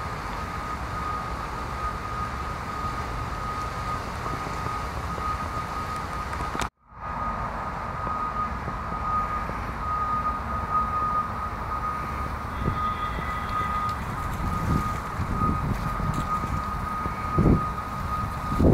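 Steady low rumble of distant traffic with a constant thin high whine over it. The sound cuts out for a moment about a third of the way in, and a few soft low thumps come near the end.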